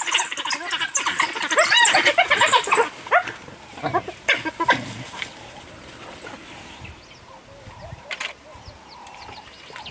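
African wild dogs and hyenas squabbling over a kill: a dense burst of many short, high calls in quick succession for about the first three seconds, then scattered calls that die down to quieter ones in the second half.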